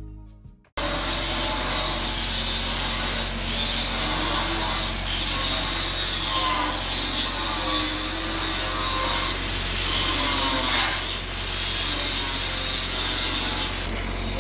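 Angle grinder grinding steel, its disc worked along the cut edge of a thick steel tank opening. It starts abruptly under a second in, runs steadily with its pitch dipping and recovering a few times under load, and quietens near the end.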